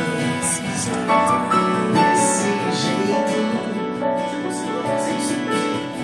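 Live song accompaniment on a keyboard: slow, sustained chords with notes held about a second each.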